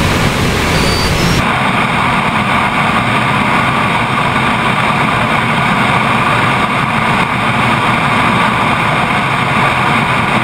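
Boeing 777's twin turbofan engines and the airflow past its belly on final approach with the landing gear down: a loud, steady rushing noise heard from outside the fuselage. About a second in it changes from the muffled hiss of the flight deck to this outside sound.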